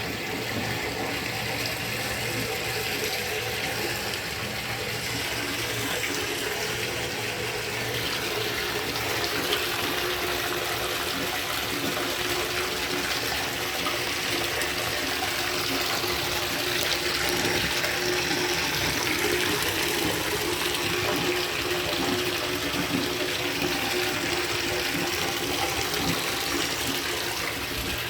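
Shower running steadily, its water spraying and splashing in a tiled tub.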